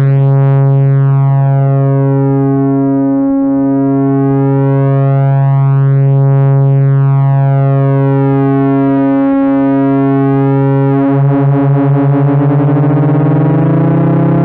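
Moog Rogue two-oscillator monosynth sounding a continuous open-gate drone with its VCA envelope bypassed, the two oscillators slightly detuned so the tone swells and dips slowly. About eleven seconds in the second oscillator is retuned, and the beating quickens into a fast wobble as the tone shifts to a new interval.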